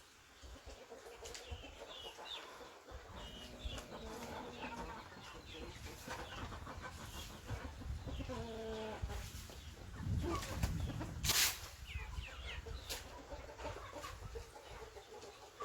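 Several chickens clucking and calling over one another in short varied calls, with higher short chirps among them. A brief loud rustling noise about eleven seconds in.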